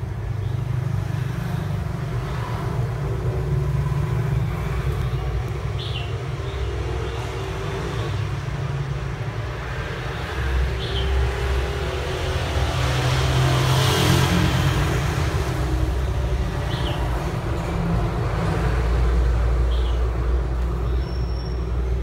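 Steady low rumble of background noise, with a few short, faint, high squeaks scattered through it.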